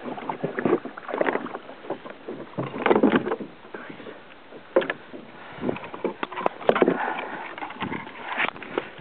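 Irregular knocks and rustling against a plastic kayak's deck as a fishing rod and a plastic bag are handled, with short swells of water splashing.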